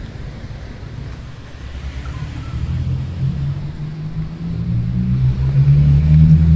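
Low engine rumble of a motor vehicle, growing louder toward the end as it comes closer.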